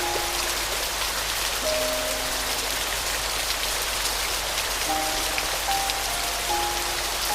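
Steady rain falling, with soft piano notes, some in pairs, sounding sparsely over it: a few near the start, around two seconds in, and several more toward the end.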